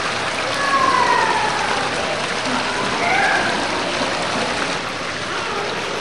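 Steady rush of running water in the pond, with faint voices over it.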